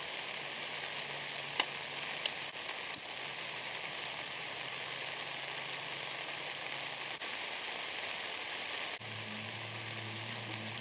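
Rain falling steadily on a tent, a continuous hiss, with three sharp clicks about two thirds of a second apart, a couple of seconds in, as a utility lighter is sparked to light a wood stove.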